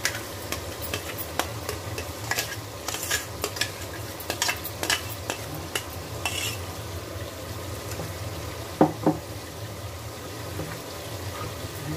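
Steel spoon stirring thick curry in a steel pan, with many quick clinks and scrapes of metal on metal over the first six seconds or so. Two loud metal knocks just before nine seconds in, over a steady low hum.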